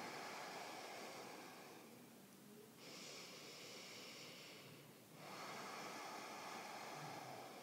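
A woman's slow, deep yoga breathing, faint: long hissing breaths through the throat in the Ashtanga ujjayi manner, one fading about two seconds in, then two more of a little over two seconds each with short pauses between.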